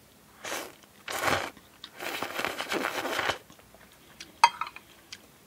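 Person slurping instant ramen broth and noodles loudly off a spoon: two short slurps, then a longer one of about a second. A single sharp click follows near the end.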